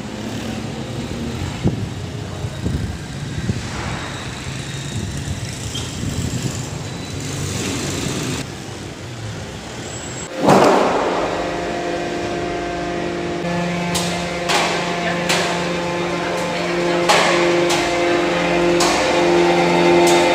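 Street traffic noise, then an abrupt change to a steady machine hum with scattered sharp metallic clicks, typical of factory machinery running in a steel door plate workshop.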